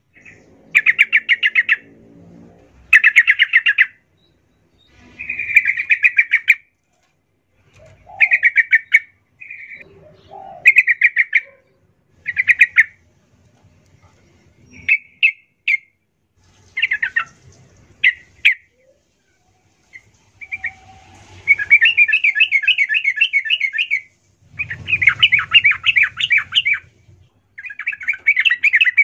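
Yellow-vented bulbul singing: bursts of rapid chattering notes, each a second or so long with short pauses between, and two longer runs of two to three seconds near the end.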